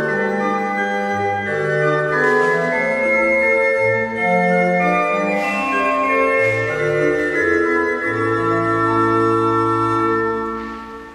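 Thomas pipe organ playing a slow aria in A minor: sustained chords over a moving pedal bass. The music ends on a held chord that dies away in the church's reverberation near the end.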